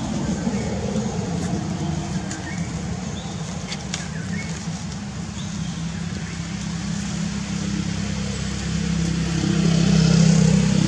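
A motor engine running steadily with a low hum that grows louder about nine to ten seconds in, as a vehicle draws closer.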